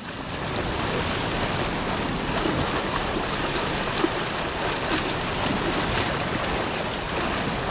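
Steady rushing water that fades in at the start.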